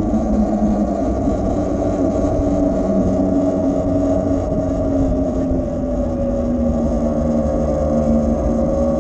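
E-Ride Pro SS electric dirt bike's motor and drivetrain whining steadily while cruising, the whine sinking slowly in pitch, over a low rumble of wind and road noise.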